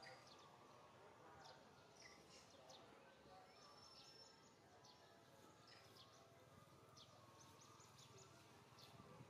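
Near silence: faint outdoor tree-canopy ambience with scattered short, high bird chirps, and one brief thin whistle about four seconds in.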